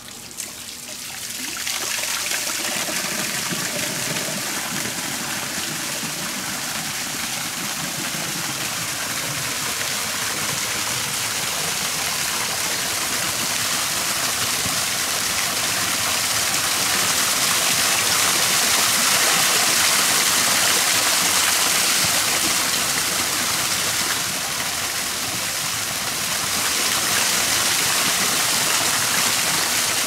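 A small waterfall pouring into a shallow pond, a steady splashing rush of water that swells over the first couple of seconds and then holds.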